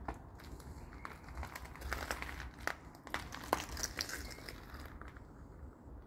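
Footsteps crunching and crackling over loose debris on a warehouse floor: irregular sharp cracks and crinkles, with a low steady rumble underneath.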